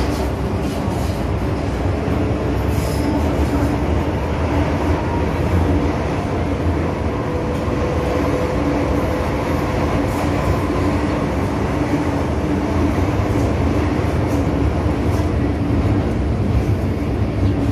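MTR M-Train electric multiple unit running on the line: a steady rumble of wheels on rail with a faint, even hum from the running gear.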